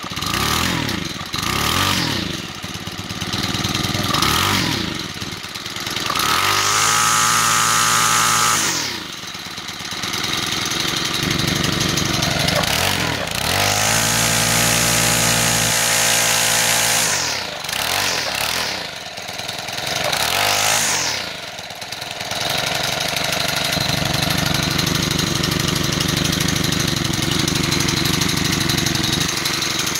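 Small four-stroke engine of a handheld string trimmer running after starting on the first pull, its valves just adjusted so it has compression again. It is revved up high and dropped back to idle about three times, then runs steadily.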